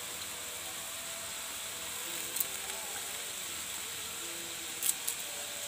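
Sauce simmering and sizzling in an aluminium wok over a low gas flame, a steady hiss. A few light clicks of chopsticks against the wok come about two and five seconds in.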